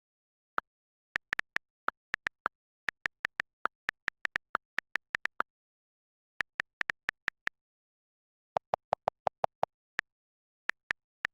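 A rapid, irregular series of short, sharp electronic clicks, like keypad or touchscreen taps, over dead silence. About eight lower-pitched clicks come in a quick run near the nine-second mark.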